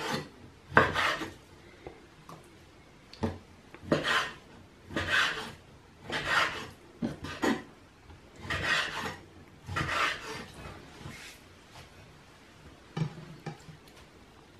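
Kitchen knife slicing raw chicken breast into pieces on a wooden cutting board: a short rasping stroke about once a second as the blade draws through the meat and scrapes the board.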